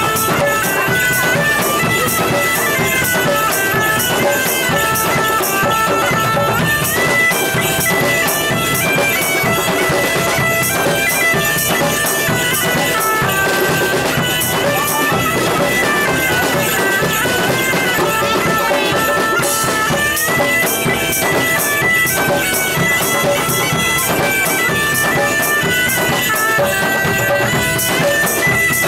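Medieval-style bagpipe tune played over drums keeping a steady beat.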